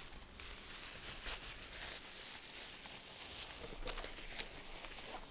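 Packaging rustling as a small boxed motorcycle part, an aluminium fluid reservoir, is handled and unwrapped, with a few sharper crackles.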